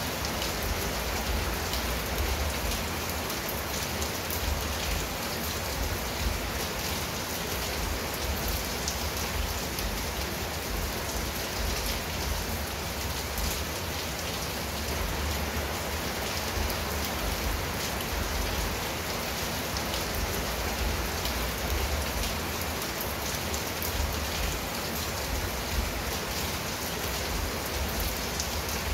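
Steady rain falling on a tiled roof and garden shrubs: an even hiss with the patter of many individual drops and a low rumble underneath.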